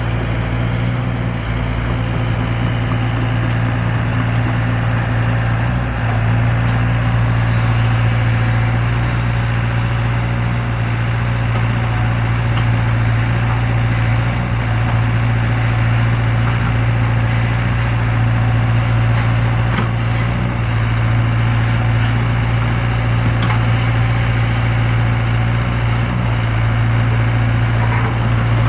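Zoomlion excavator's diesel engine running steadily with a constant low drone, getting a little louder about six seconds in.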